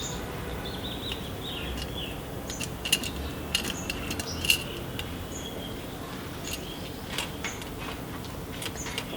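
A few light, scattered clicks and clinks as the headlight bulb and its wiring connectors are handled and refitted.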